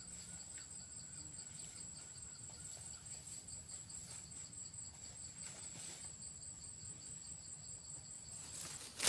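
An insect, cricket-like, trilling steadily in a very high, fast-pulsing tone that stops just before the end, over a faint low rumble; a sharp knock comes right at the end.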